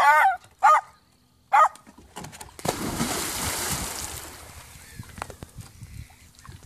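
A dog barks three times in quick succession. About two and a half seconds in, a large dog leaps into the lake with a loud splash, followed by water sloshing as it swims.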